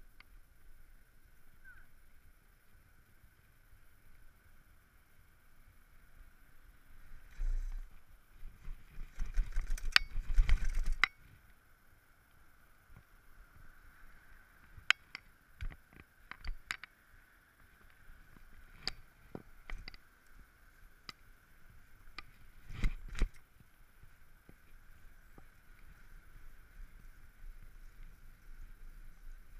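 Bicycle riding over paving stones and kerbs: a loud rumbling rattle for about two seconds around ten seconds in, then scattered sharp knocks and clicks of the bike jolting over bumps, loudest a little past twenty seconds in.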